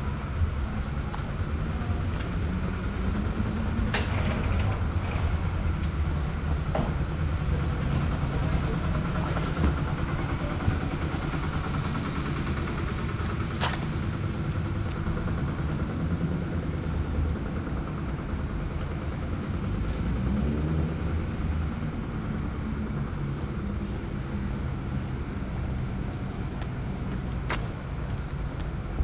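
City street traffic: a steady low rumble of road vehicles, with a vehicle engine rising in pitch as it passes or pulls away, twice, and a few short sharp clicks.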